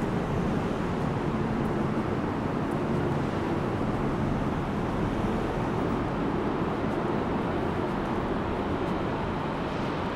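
Steady road traffic noise, a continuous wash of passing vehicles, with a low engine hum more noticeable in the first few seconds.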